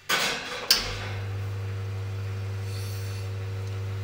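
Commercial espresso machine brewing a shot: its pump hums steadily while coffee runs into the cup. Just before the hum sets in there is a brief rush of noise and a sharp click, the loudest moment.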